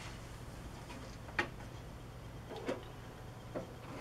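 A low steady hum with three faint, short clicks spread about a second apart.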